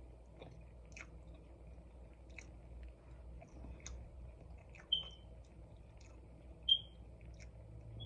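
A person chewing a soft waffle sandwich close to the microphone, with small wet mouth clicks every second or so. Two short high-pitched beeps, about five seconds in and again nearly two seconds later, are the loudest sounds.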